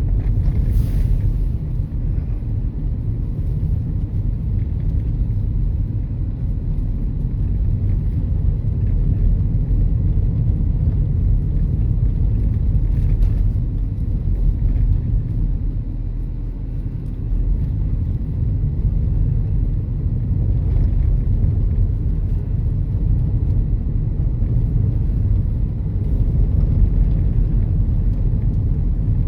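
Car driving, heard from inside the cabin: a steady low rumble of engine and tyre noise from the road.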